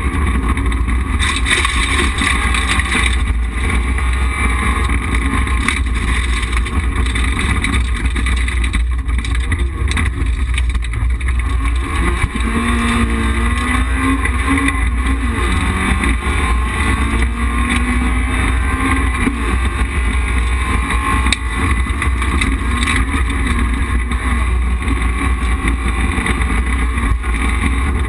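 Rally car's engine driven hard, heard from inside the caged cabin, with revs climbing and dropping as the car accelerates and slows along a stage, over a constant low drone of road and mechanical noise.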